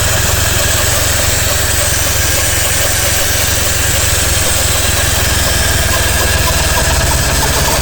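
Car engine running steadily with a constant hum or buzz over it, which the owner suspects could be a worn gearbox bearing.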